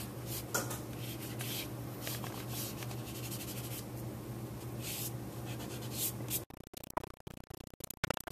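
Eraser rubbing over compressed charcoal on paper, a run of short scratchy strokes over a steady low hum. About two-thirds of the way through, the sound turns choppy and cuts in and out.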